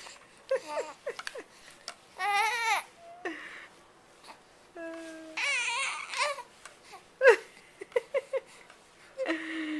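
A baby babbling and letting out wavering, half-crying squeals in several short bursts, the loudest a sharp cry about seven seconds in.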